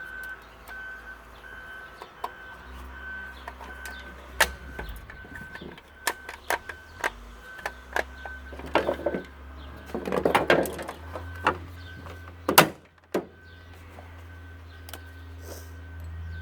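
Irregular clicks, knocks and rattles of an electric string trimmer's plastic housing and parts being handled and pulled apart, growing busier in the second half, with one loud knock near the end.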